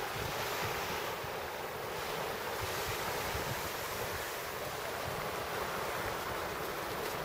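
Small waves washing steadily onto a pebble shore, with wind buffeting the microphone in a low, fluttering rumble.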